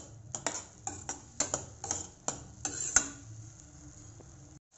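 Metal spoon stirring and scraping thick tomato-onion masala in a steel kadai: a run of quick clinks and scrapes of metal on metal, the loudest about three seconds in, then quieter.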